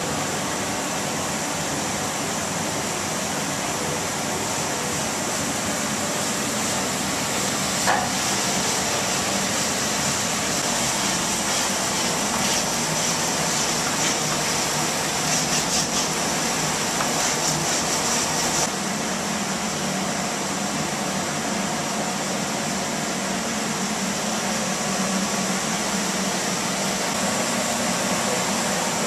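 Steady loud hissing background noise, with a single sharp knock about eight seconds in and faint rapid clicking for several seconds after the middle.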